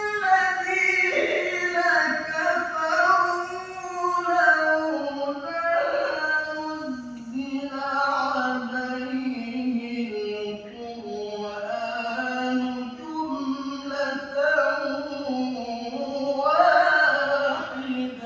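A man reciting the Qur'an in melodic tajwid style, holding long ornamented phrases with many bends in pitch; the line drops into a lower register about seven seconds in and falls away near the end.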